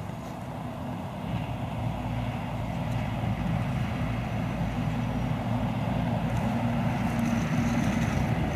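A motor vehicle's engine rumbling steadily, growing slowly louder.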